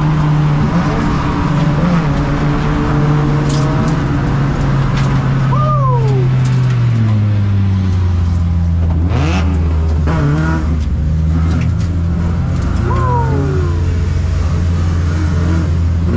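Race car engine heard from inside the cockpit, holding a steady note that drops to a lower, slower pitch about seven seconds in as the car eases off. Two short falling whines come about six and thirteen seconds in, with scattered clicks and rattles.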